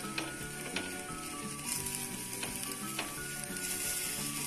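Stuffed roti sizzling in butter on a hot grill pan, a steady hiss with a few light clicks of a spoon spreading butter over the top.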